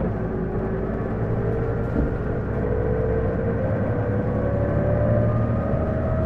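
Interior running sound of an Isuzu Erga city bus (PJ-LV234L1) pulling away, with a low diesel rumble and a whine that climbs steadily in pitch as the bus gains speed. The whine is the abnormal noise this bus makes under every acceleration, which the owner suspects comes from the transmission.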